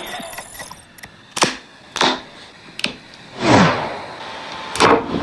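Four sharp clicks and a short swish, spaced a second or so apart: hard plastic and cardboard parts of the phone's box and accessories being set down, snapped and slid in an unboxing.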